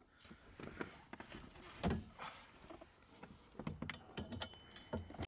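Light clicks and knocks of metal hardware being handled and fitted by hand onto a car's rear harness bar, one sharper knock about two seconds in and a cluster near the end.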